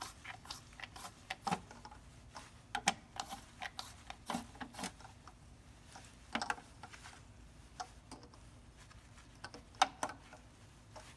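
Plastic hubcap nuts being hand-tightened onto a car wheel: irregular light clicks and ticks of plastic turning under a gloved hand, with one sharper click near the end.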